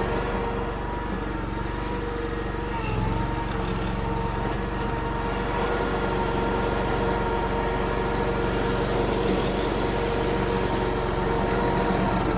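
Honda gas engine of a Derette DRT450 mini skid steer running steadily, with a brief dip in pitch about three seconds in.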